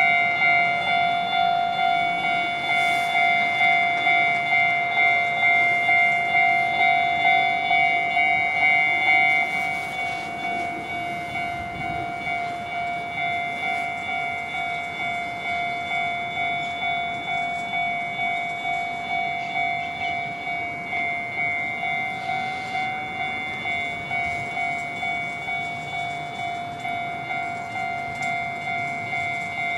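Japanese railway level-crossing warning bell ringing in an even, repeating ding of about two strikes a second, the alarm for an approaching train. About nine seconds in it steps down to a quieter level.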